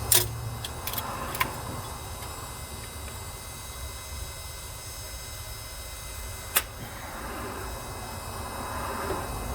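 A few sharp metallic clicks of hand tools working on the van's engine, twice close together near the start and once more about six and a half seconds in, over a steady low rumble.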